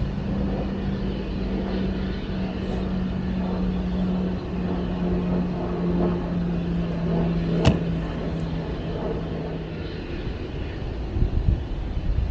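A distant engine's steady drone, its hum stepping down in pitch a couple of times before fading away near the end, over a low rumble. A single sharp click about two-thirds of the way through.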